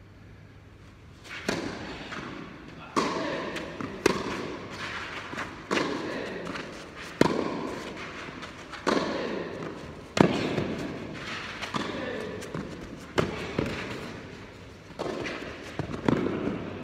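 Tennis rally on an indoor clay court: the serve and then sharp racket-on-ball hits and bounces about every one and a half seconds, each echoing in the hall.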